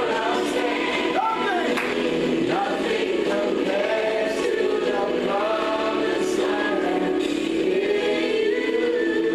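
A choir singing gospel music, several voices holding and moving between sustained notes together.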